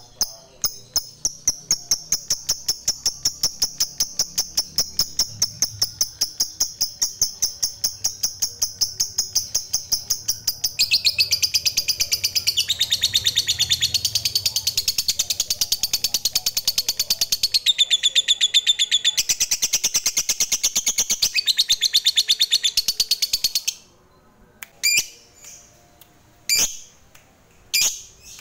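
Lovebird's long 'ngekek' chatter: a fast run of sharp, high repeated notes lasting over twenty seconds. It grows louder and fuller about eleven seconds in, then stops abruptly. A few single short chirps follow near the end.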